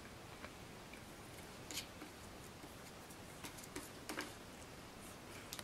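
Scattered light plastic clicks and rattles from an Activity Turn Around cat treat toy as a cat pushes its treat-filled tube on the rod, with a quick cluster of clicks a little past halfway.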